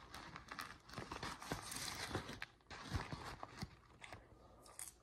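Faint rustling and crinkling of a paper microwave popcorn bag being handled, with scattered small clicks and taps.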